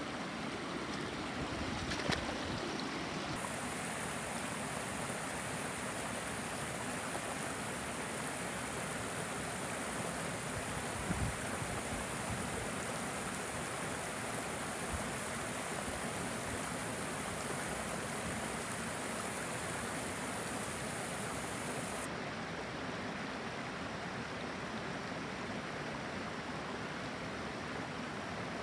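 Shallow, clear stream babbling over rocks and spilling over a low line of stones: a steady rush of water. A few brief knocks come in the first couple of seconds and once near the middle.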